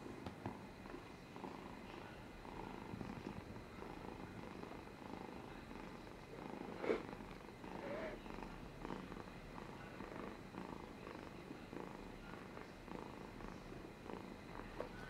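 Domestic cat purring steadily while being stroked, a low, fast, even rumble. One brief sharp noise stands out about halfway through.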